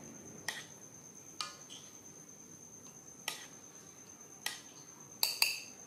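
Metal spoon clinking against a porcelain bowl and an aluminium wok as stir-fried food is scooped out. About half a dozen sharp, ringing clinks, the two loudest close together near the end. A faint steady high-pitched whine sounds underneath.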